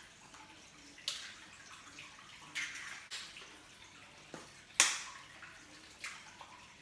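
An egg being cracked and broken into a bowl of potato mixture: a few short, sharp taps and wet drops, the loudest about five seconds in.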